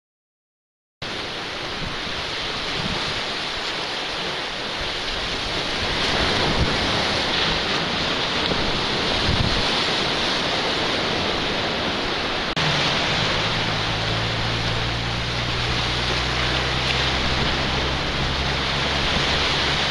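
Sea surf washing and breaking on a rock breakwater, mixed with wind on the microphone, starting about a second in as a steady roar. After a cut near the middle, a low steady hum joins in.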